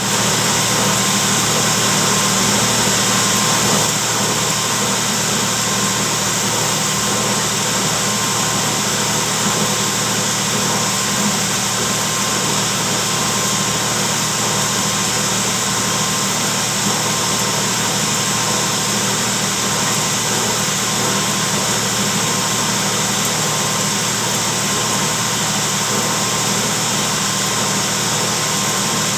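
Engine running steadily: a constant hum with a loud, even hiss over it, a little louder for the first four seconds.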